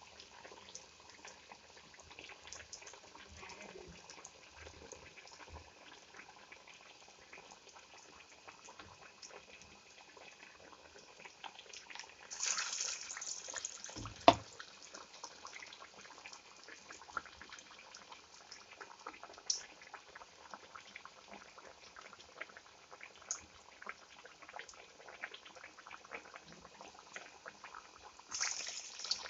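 Parippu vada (chana dal fritters) frying in hot oil over a low flame: a faint steady sizzle and crackle, swelling to a louder hiss about twelve seconds in and again near the end, with one sharp knock just after the first swell.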